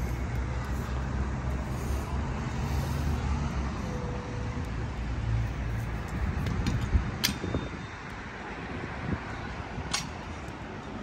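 Road traffic: a motor vehicle's engine runs close by with a low hum over the general traffic noise, fading out about six seconds in. Two sharp clicks come later, about seven and ten seconds in.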